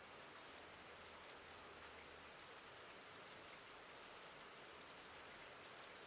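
Faint, steady rain falling, an even patter of many drops without a break.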